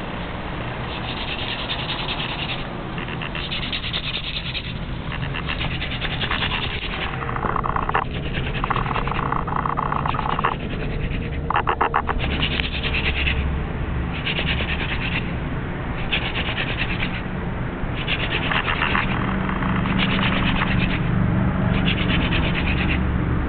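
Hand-drill friction fire: a Ricinus communis (castor plant) spindle spun between the palms, rubbing and grinding into a wooden hearth board. It comes in about a dozen strokes of roughly a second each, with short pauses between as the hands go back to the top of the spindle.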